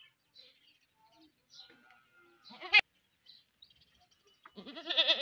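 A goat bleats once near the end, a wavering call about half a second long. It follows a single sharp click about halfway through.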